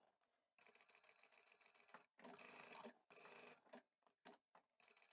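Faint, brief runs of a ProSew sewing machine stitching, starting and stopping a few times about two seconds in; otherwise near silence.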